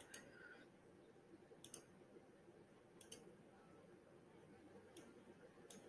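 Near silence with a handful of faint computer mouse clicks, roughly a second apart.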